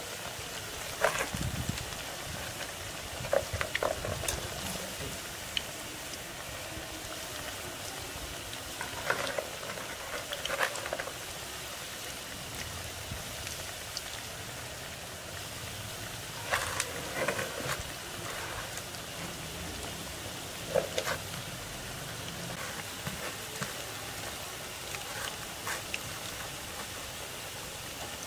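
Spinach pakoras deep-frying in a pan of hot oil: a steady sizzle with a few short, louder crackles scattered through.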